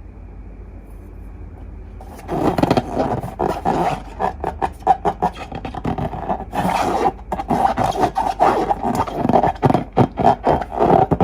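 Slime being squeezed and kneaded by hand, a dense run of wet, sticky clicks and squelches that starts about two seconds in and keeps going.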